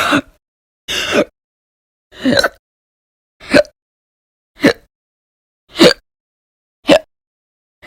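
A person hiccuping over and over, about once a second: some seven short, sharp hiccups in a row, each with a brief voiced catch.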